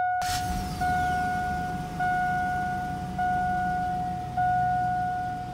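Chevy Silverado pickup engine starting with a brief crank, then idling with a low steady rumble. Over the idle, the dashboard warning chime sounds a steady tone that restarts about every second.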